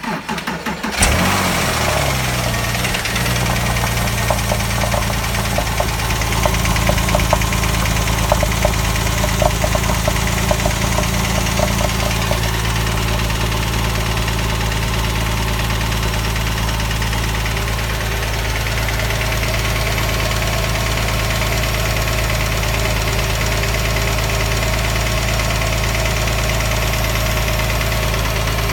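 A 2006 Porsche 997 3.8-litre flat-six is cranked and catches within about a second, then idles with a rhythmic knocking that is most prominent in the first dozen seconds. The idle settles lower after about twelve seconds. The owner puts the knock down to piston slap or the hydraulic lifters.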